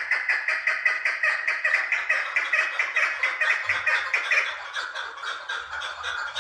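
Two chukar partridges calling together, a rapid unbroken run of "chuk" notes at about five or six a second.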